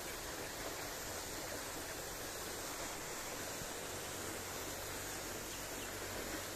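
Steady rush of a nearby waterfall: an even, unbroken hiss of falling water.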